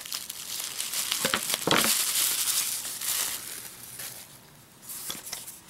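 Plastic bubble wrap rustling as it is pulled and peeled off a cardboard mailing tube by hand, loudest from about two to three and a half seconds in, with a couple of short knocks from handling.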